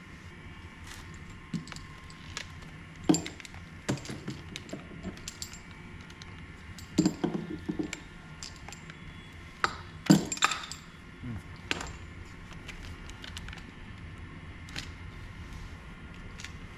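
Scattered metallic clinks and knocks of bicycle parts and tools being handled during repair work. The loudest knocks come about three seconds and ten seconds in, with a quick cluster around seven seconds.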